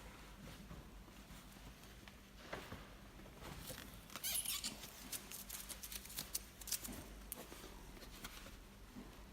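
Faint handling noises: scattered soft clicks and rustles over a low hum, thickest about four seconds in.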